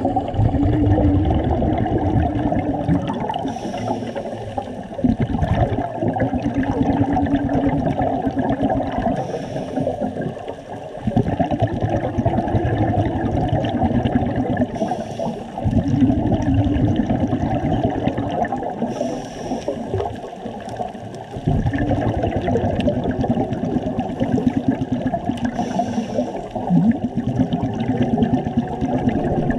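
Scuba divers breathing through regulators underwater: long stretches of bubbling exhaust broken by short hissing inhales, about five breaths at an even pace.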